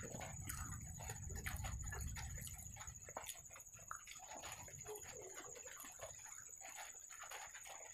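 Close-miked eating: wet chewing and lip smacking, with the soft squish and tearing of fingers breaking fried naan puri and scooping it through gravy.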